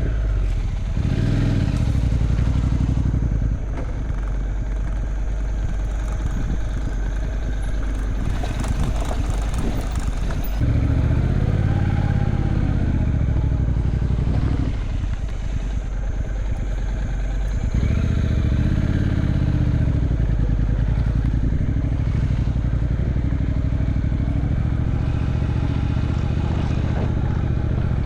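Motorbike engine running while riding along, its note shifting a couple of times with the throttle.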